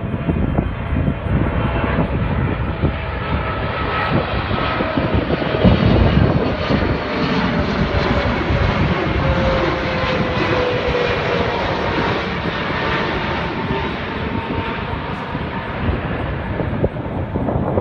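Boeing 777-300ER's twin GE90 turbofan engines on landing approach, a steady jet roar as the airliner passes low overhead with gear down. Whining tones in it fall in pitch as it goes by.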